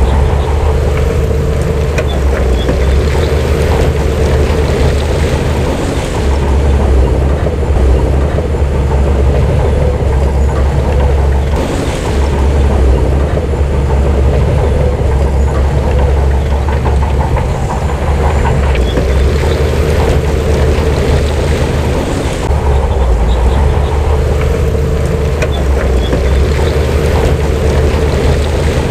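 Diesel engine of heavy earth-moving machinery running steadily, a deep continuous rumble.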